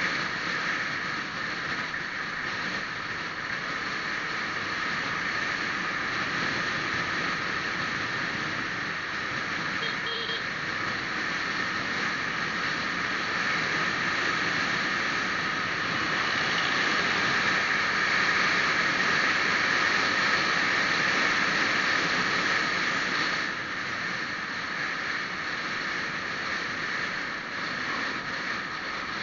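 Steady rushing road and wind noise of a moving vehicle, heard from on board, growing a little louder in the second half and easing off shortly after.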